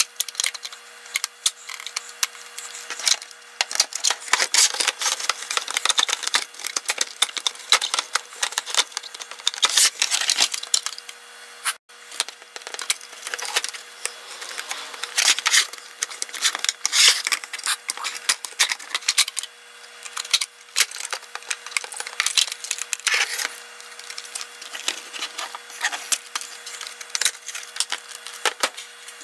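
Sped-up sound of an iPulse jukebox's white plastic dome shell and speaker panel being handled and taken apart: a fast, dense run of plastic clicks, taps and scrapes, with a faint steady hum underneath.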